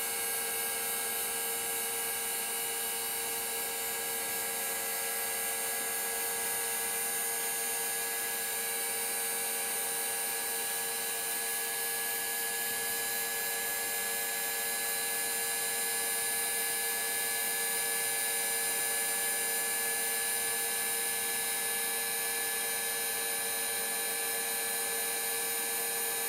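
Boeing 737 vertical gyroscope (model 314) with its rotor spinning after power-up: a steady hum and whine made of many tones, as the rotor comes to a stable running speed.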